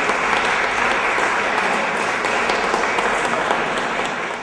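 Audience applauding, a dense steady clapping that starts to fade out near the end.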